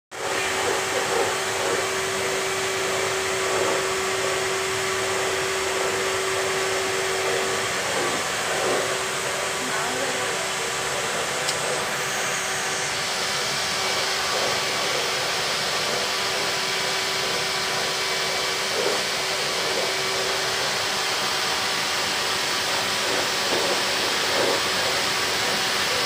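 Vacuum cleaner running steadily: a continuous rush of air over a steady motor whine. About halfway through, the airy hiss turns brighter and stays so.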